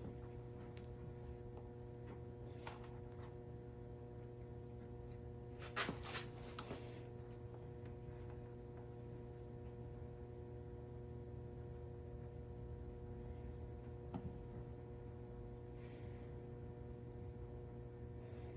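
Steady electrical hum with a few light clicks and taps, a cluster about six seconds in and another near fourteen seconds, as spark plugs and multimeter test leads are handled.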